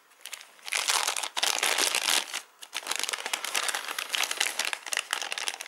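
Metallised anti-static shielding bag crinkling as it is handled, starting about a second in and going on with a couple of brief pauses.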